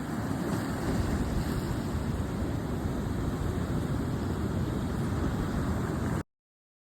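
Steady rush of sea surf mixed with wind buffeting the microphone, cutting off abruptly about six seconds in.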